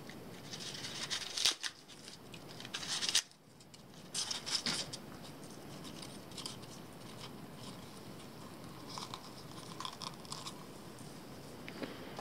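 Polystyrene foam being broken into small pieces by hand, making short bursts of crackly crunching. The loudest bursts come about one and a half, three and four and a half seconds in, with lighter ones after.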